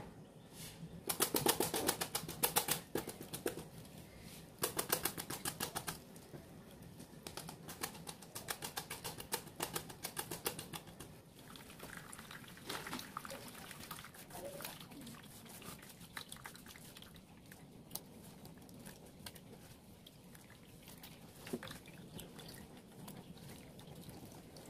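Hand rubbing and pressing wet blended melon-seed pulp against a mesh sieve: bursts of quick scratchy rubbing, densest in the first half and thinning out later.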